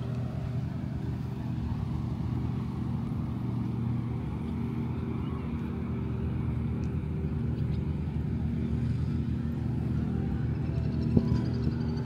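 Steady low motor hum at a constant pitch, with one sharp knock near the end.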